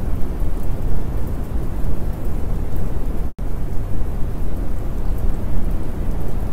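Steady heavy-rain noise with a deep low rumble and no distinct events. It cuts out completely for an instant about three seconds in.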